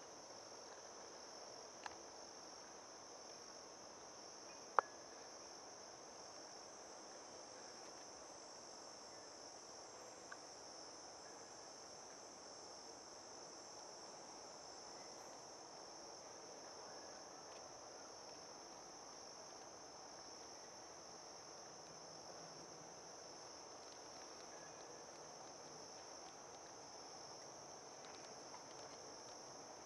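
Steady, high-pitched chorus of insects droning without a break. A few sharp clicks break in, the loudest about five seconds in.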